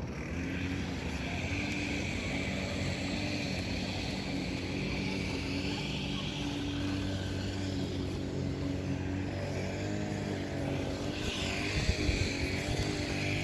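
A motor running with a steady drone, and a single knock about twelve seconds in.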